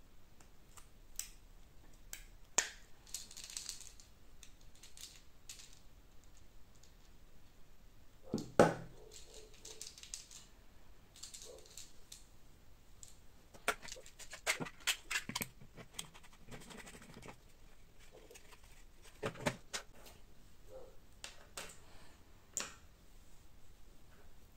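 3D-printed plastic crossbow magazine parts handled and set down on a wooden workbench: scattered clicks and knocks, with one louder knock about a third of the way in and a quick run of clicks a little past halfway.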